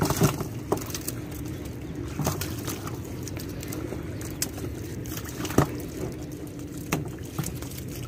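Wet slaps and splashes in shallow mud and water, a handful of sharp ones scattered through, as fish flop and bare feet tread in the mud, over a steady low drone.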